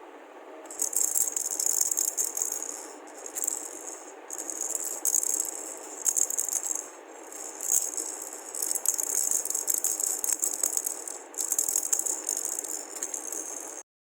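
Toy rattle shaken repeatedly, a bright, high-pitched rattling in long runs with a few brief breaks, cutting off suddenly near the end.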